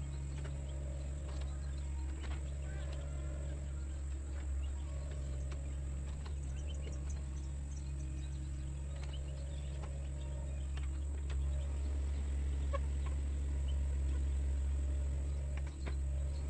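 Sunward mini excavator's diesel engine running at a steady drone, with scattered faint clicks and a few brief chirp-like calls.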